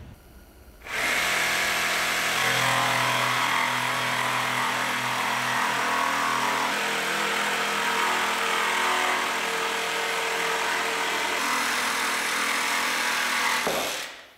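Cordless Makita jigsaw cutting a long straight line through an MDF sheet. It starts about a second in, runs steadily for about thirteen seconds and stops just before the end.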